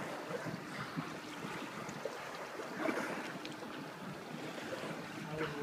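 Choppy sea water splashing and lapping around a small boat, with a faint steady engine hum and wind on the microphone.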